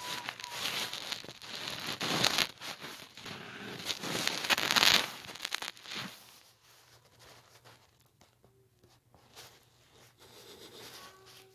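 Cat hissing and spitting at another cat, a harsh crackly hiss for about six seconds, loudest about two and five seconds in. Near the end a faint, drawn-out yowl.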